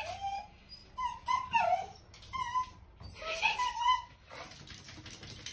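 Small fluffy dog whining in a string of short, high calls that bend up and down in pitch, fading out about four seconds in.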